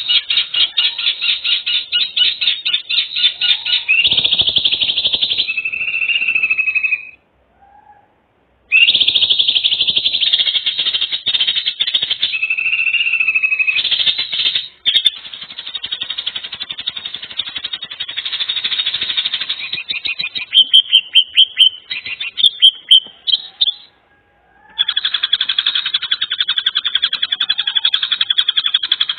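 Loud, rapidly pulsing animal trills, several overlapping and changing from one stretch to the next, with two brief silences where the sound cuts out and comes back.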